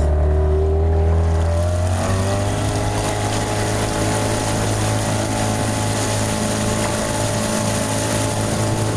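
Boat motor running steadily, its pitch rising about two seconds in and then holding.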